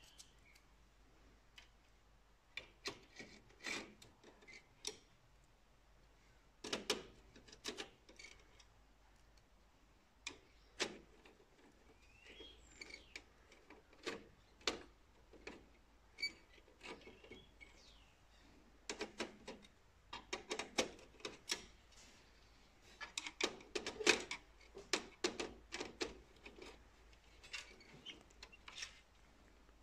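Irregular clusters of small clicks, taps and scrapes from a screwdriver on screws and the sheet-metal sensor mounts inside an Océ PlotWave 300 scanner.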